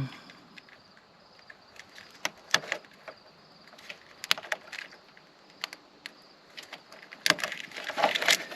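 Scattered light clicks and taps of hand work on a car's washer hose and wiring harness, coming thicker about seven seconds in.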